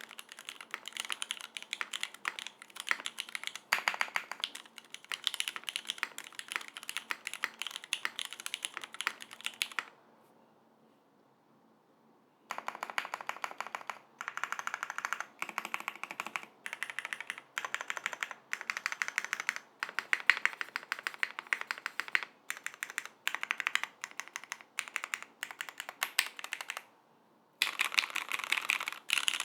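Steady typing on a Unikorn R1 custom mechanical keyboard. It has lubed vintage Cherry MX Black linear switches in an aluminium full plate, with GMK keycaps. The typing stops for about two and a half seconds about ten seconds in, and briefly again near the end.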